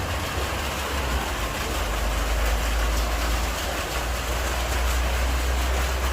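Steady outdoor ambient noise: a strong low rumble under an even hiss, without speech or music.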